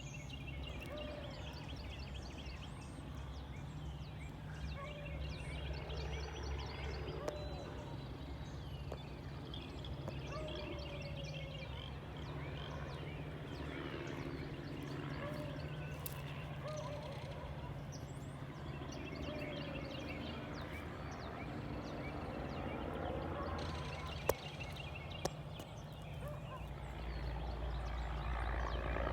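Animals and birds calling at dawn: short, repeated, wavering calls mid-pitch, with higher chirping birdsong throughout, over a steady low hum.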